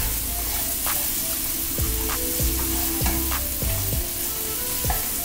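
Chopped onions sizzling as they sauté in olive oil in a frying pan, with a utensil knocking and scraping against the pan every second or so as they are stirred.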